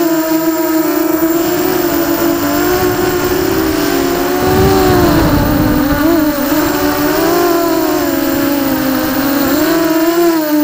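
QAV250 racing quadcopter's brushless motors and propellers whining, as heard from a camera on the drone, the pitch wavering up and down with throttle changes. A rush of wind on the microphone about halfway through.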